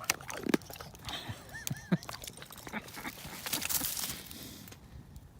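A dog being fed treats from a snack bag: a series of short clicks and crackles, with a rustle of the bag about three and a half seconds in.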